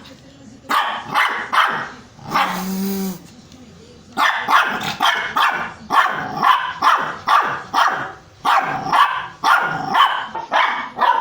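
A dog barking repeatedly at a hair dryer, in quick runs of about two barks a second. About two seconds in, a brief steady hum with hiss sounds for under a second, the hair dryer running.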